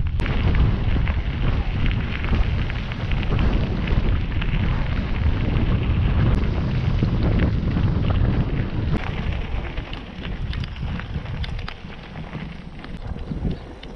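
Wind buffeting the microphone of a camera on a moving bicycle, with the tyres crunching over gravel trail. It grows quieter and patchier in the last few seconds as the bike comes onto a sealed road.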